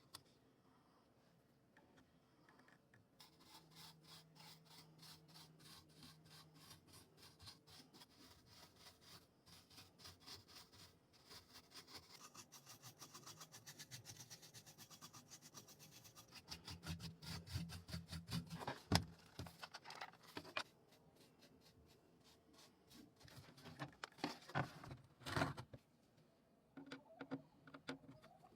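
Hand scrubbing or rubbing strokes on keyboard plastic, quick and back-and-forth at about three strokes a second, followed near the end by a few sharper knocks.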